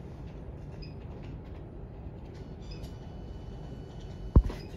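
Distant steady low rumble of an Airbus A319's jet engines as it climbs out after takeoff, with a few faint high chirps. A single sharp thump about four seconds in is the loudest sound.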